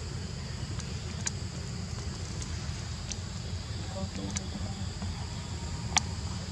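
Outdoor ambience: a steady low rumble and a steady high insect drone, broken by a few sharp clicks, the loudest about six seconds in.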